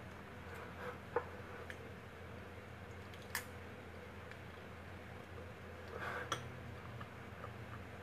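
Metal spoon clicking against a ceramic bowl and plate while eating, three sharp ticks spread over several seconds, faint, over a low steady room hum.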